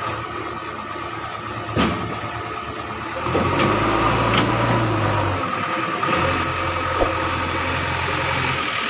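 Diesel tractor engine running steadily, growing louder about three seconds in, with a couple of short sharp knocks.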